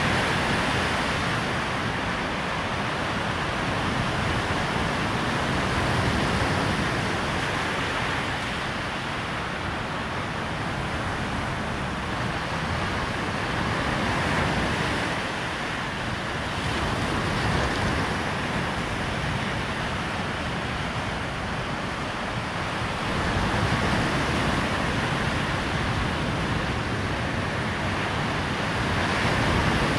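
Surf breaking and washing up a sand beach, a steady rush that swells and eases every several seconds, with wind.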